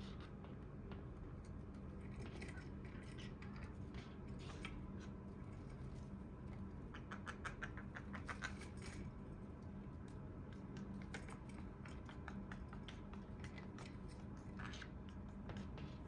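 Green-cheeked conure picking and scraping at a sisal rope perch with its beak: soft, scattered scratches and clicks, with a quick run of clicks about halfway through.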